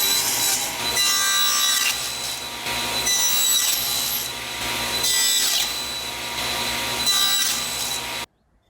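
Hand saw cutting wood in repeated rasping strokes; the sound cuts off suddenly near the end.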